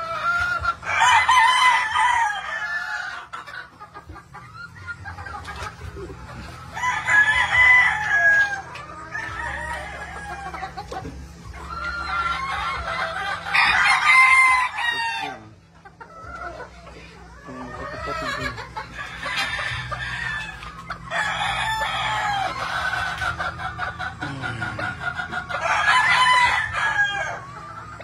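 Gamefowl roosters crowing in turn, about six crows a few seconds apart, each lasting a second or two. Hens cluck more quietly in between.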